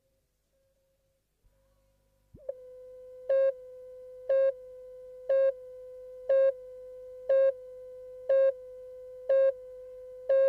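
Broadcast videotape countdown leader: a steady line-up tone begins about two seconds in, with a louder beep at the same pitch once a second, eight beeps, one for each number of the countdown clock. A faint low hum sits underneath.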